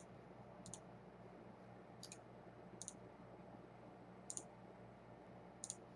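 Computer mouse button clicking six times, each click a quick crisp double tick, faint over a low steady hum.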